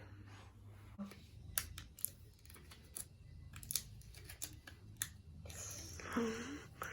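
Scattered light clicks and taps of fingers on a new iPhone SE's screen during setup, with a brief voice-like sound near the end.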